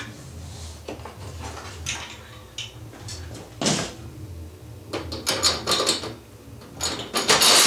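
Knocks and scrapes of a DeWalt benchtop table saw being handled and lowered onto a plywood base, its thin-walled steel tube frame bumping against the wood and the upright bolts. The sharpest clatter comes near the end as the frame settles into place.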